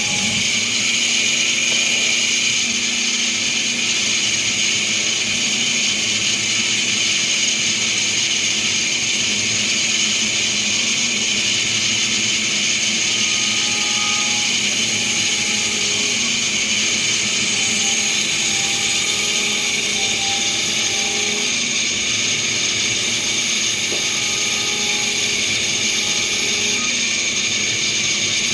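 Essilor Mr. Blue lens edger milling a spectacle lens, a steady high-pitched whine of the milling cutter with a continuous cutting hiss.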